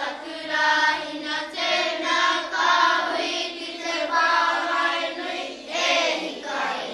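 A group singing a Māori waiata in unison in te reo Māori, the last phrase of the song dying away at the very end.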